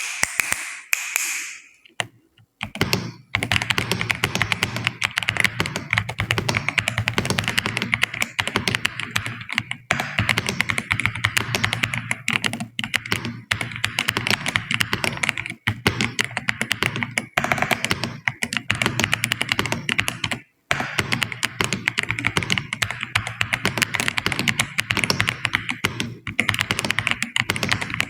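Fast, continuous typing on a computer keyboard: a dense stream of key clicks that starts about three seconds in and breaks off briefly about twenty seconds in.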